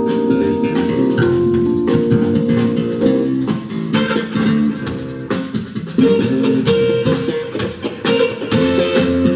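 Live band playing an instrumental funk number: electric guitar lines over bass guitar and drum kit, with steady drum hits throughout.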